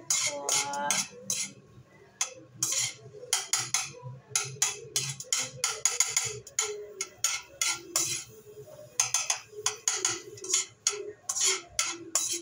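Metal spoon scraping and clinking against a stainless steel pot as butter is stirred around it, in quick irregular strokes over a low steady hum.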